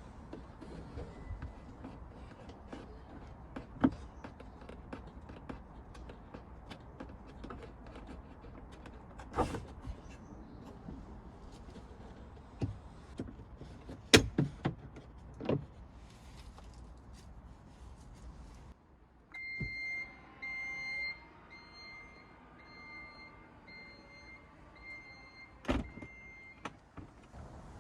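Scattered clicks, taps and a few sharp knocks of hands and tools working on a car's trim and brake light housing. Then, for about seven seconds near the end, a steady electronic beep repeats at even spacing with a faint whirring beneath it.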